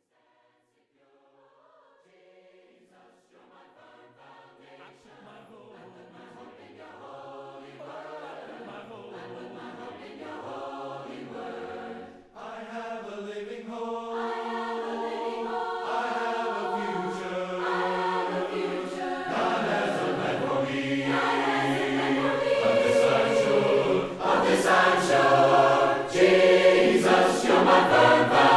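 Choir singing, fading in from silence and swelling steadily louder, with a brief dip about twelve seconds in.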